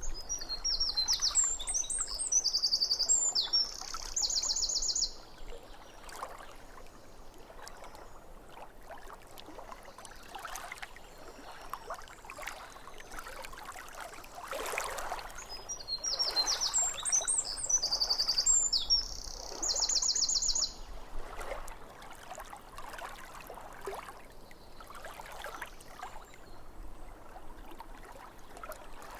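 Small waves lapping irregularly at a lake shore, with a songbird singing a high phrase that ends in a fast trill, twice, about fifteen seconds apart.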